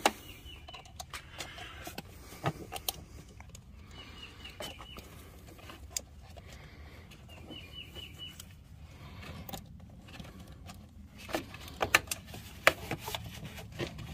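Plastic clicks and knocks as a Gen 1 Toyota Prius air cleaner housing and intake hose are handled and fitted back on, loudest in a cluster near the end. A bird chirps in short runs of quick high notes three times in the background.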